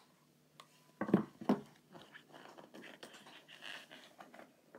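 A paperback children's book handled close to the microphone: two knocks about a second in, then paper rustling and crackling as the book is moved and its page turned.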